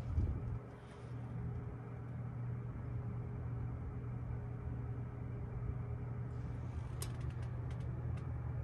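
Steady low hum of an elevator car's machinery, with a dull thump just after the start and a few light clicks about seven to eight seconds in.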